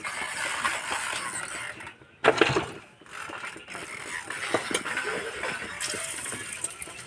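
A hand squishing and mixing thick gram-flour batter with cauliflower in a steel plate, with small clicks and clinks against the metal. The sound drops out briefly about two seconds in, then comes a sharp knock.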